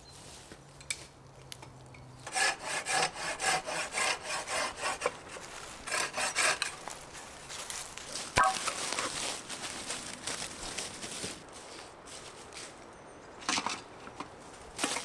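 Saw cutting wood in rhythmic back-and-forth strokes, about three a second, starting about two seconds in, pausing and going on again more softly, with a sharp crack about eight seconds in.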